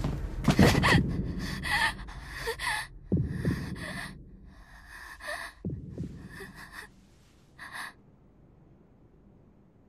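A young woman's voice gasping and panting in pain, short breathy gasps and whimpers that die away about eight seconds in. A few dull thuds fall among them, the first about half a second in, as books drop to a wooden floor.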